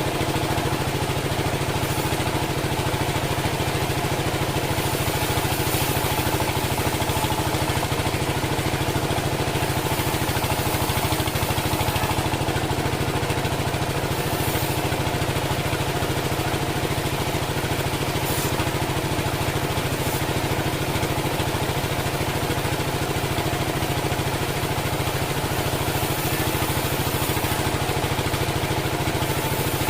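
Engine of a homemade band sawmill running steadily, with a fast, even low pulse and a steady hum.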